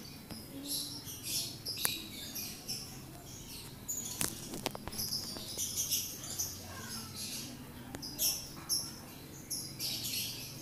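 High-pitched chirping in short bursts that start and stop irregularly, with a few sharp clicks about two and four to five seconds in.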